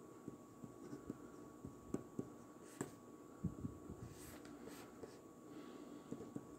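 A pen writing on a paper card: faint scratching strokes and small ticks as words are written out by hand.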